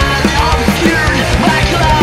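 Rock band recording playing: electric guitar, bass and drums, with a lead line sliding up and down in pitch over a steady low end.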